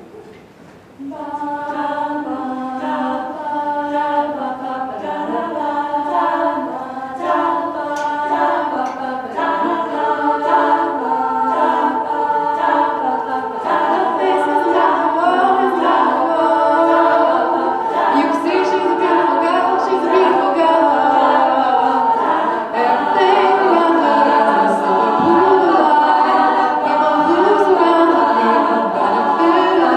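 All-female a cappella group singing, a lead voice over layered backing harmonies with no instruments, starting about a second in.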